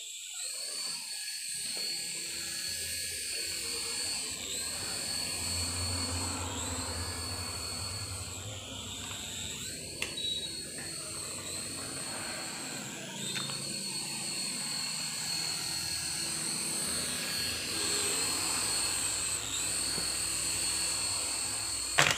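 Small coaxial RC toy helicopter's electric rotor motors whining high and steady, the pitch dipping and climbing back every couple of seconds as the throttle changes. A few light ticks come in midway, and a sharper knock near the end.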